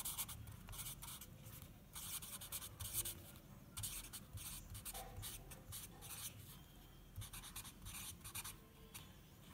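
Felt-tip permanent marker writing on paper: faint, short, irregular strokes of the tip rubbing across the sheet.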